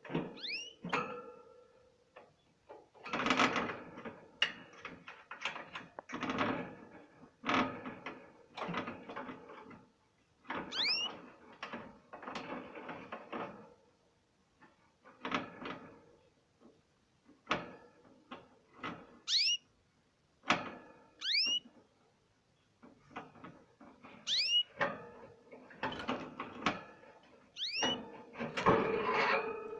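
Canaries bathing: short bursts of splashing water from the birds flapping in the bath, broken by pauses, with brief upward-sliding chirp calls now and then.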